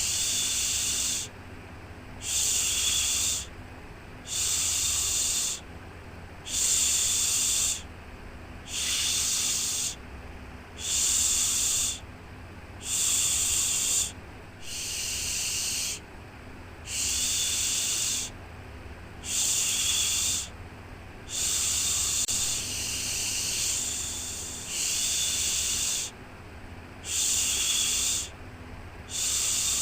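Rhythmic "shhh" shushing, a hissing shush repeated about once every two seconds, each lasting a little over a second, over a faint steady low hum: a shushing sound used to soothe a baby to sleep.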